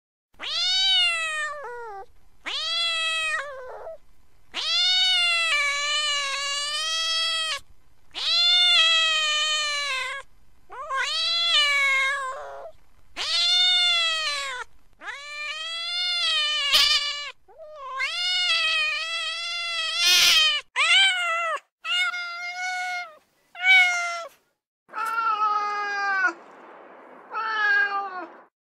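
Domestic cat meowing again and again: about a dozen long, drawn-out meows of one to three seconds each, most rising and then falling in pitch, with short gaps between them. The last few meows have a faint hiss behind them.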